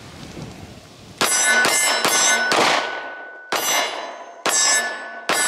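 About seven 9mm pistol shots, starting about a second in, each hit followed by the ringing clang of a steel silhouette target.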